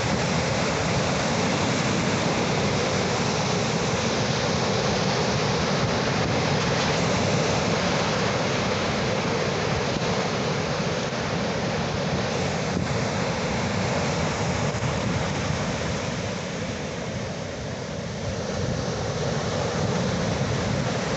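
Ocean surf: waves washing continuously in a steady rush of water noise that eases for a moment about two-thirds of the way through, then builds again.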